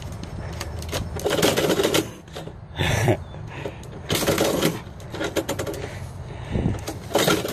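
Irregular bursts of clattering and rattling: a cat pushing mail out through a letterbox, the flap knocking and rattling.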